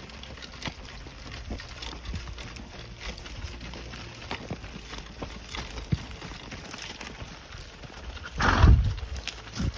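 Horse walking, its hooves clopping at an uneven pace. A short, loud rush of noise comes about eight and a half seconds in.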